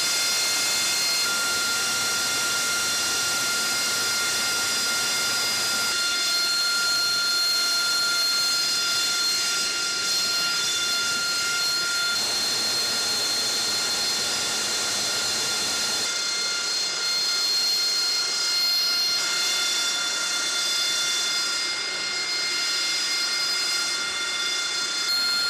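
AV-8B Harrier II's Rolls-Royce Pegasus turbofan running at ground idle: a steady high-pitched jet whine over a loud hiss, its tones shifting slightly a couple of times.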